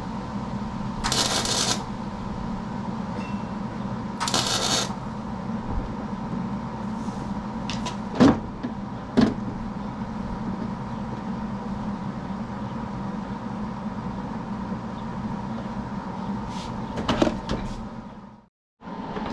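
Three short bursts of welding arc crackle, each under a second, as small beads of weld are laid on a snapped belt-tensioner bolt. A steady machine hum runs underneath, with a few sharp clicks later on.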